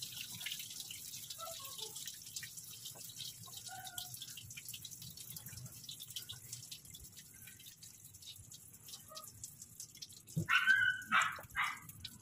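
Engine coolant pouring out of the open thermostat housing into a plastic bag, a watery splashing and trickling that thins out as the flow weakens. Near the end three short, loud calls break in.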